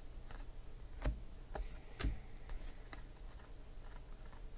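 Sports trading cards being thumbed through one at a time, each card slid off the stack with a light tick or snap, roughly twice a second at an uneven pace.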